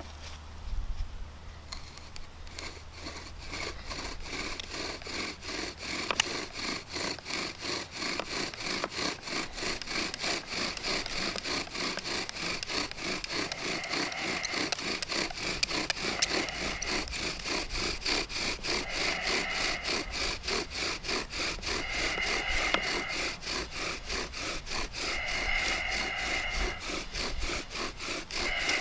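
Bow drill working: the wooden spindle is driven back and forth by the bow in a fast, even rhythm, grinding into the fireboard to burn in its socket. From about halfway a squeak comes in, in spells.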